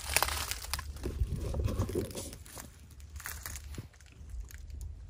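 Dry leaf litter crunching and rustling, busiest in the first couple of seconds, then thinning to scattered crackles.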